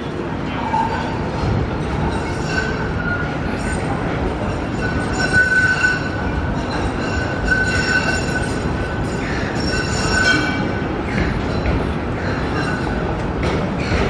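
Steady low rumble of city traffic, with a thin high squeal that comes and goes several times through the middle.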